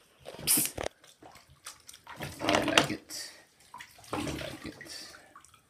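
Soapy water sloshing and splashing in a plastic bucket as hands scrub a wet puppy, in irregular bursts, loudest about two and a half seconds in.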